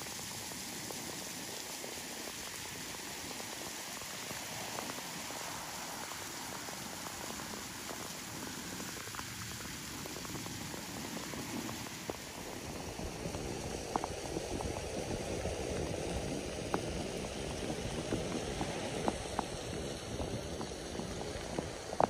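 Steady rain falling on wet rock and stones, with scattered sharp drips close by. About twelve seconds in, the hiss grows fuller and louder.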